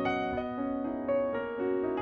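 Background music: a piano playing a melody of single notes over held notes, with a new note every half second or so.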